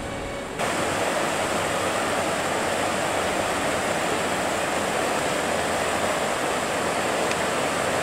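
Mountain river rushing over shallow rapids, a steady noise of running water that steps up louder about half a second in.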